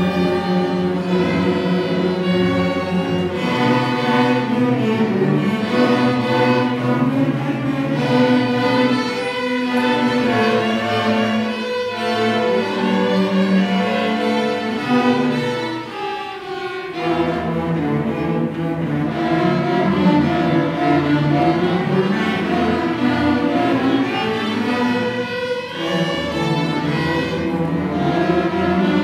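A school string orchestra of violins, cellos and double basses playing a piece together, with a brief drop in loudness just past halfway before the low strings come back in fully.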